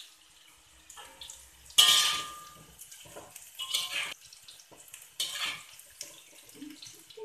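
Metal spatula scraping and clanking against a steel wok while fried tempe cubes are stirred. The loudest is a ringing clank about two seconds in, with further scrapes near four and five and a half seconds.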